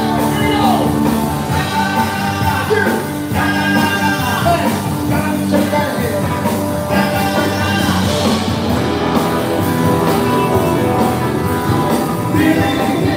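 Live rock band playing, with guitars and drums under a singer's voice.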